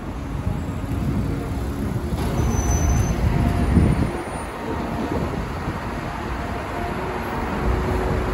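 Steady low rumble of road vehicles, swelling louder about four seconds in.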